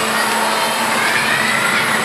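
Steady loud rush and rumble of a swinging pirate-ship ride in motion, with a high voice calling out faintly from about a second in.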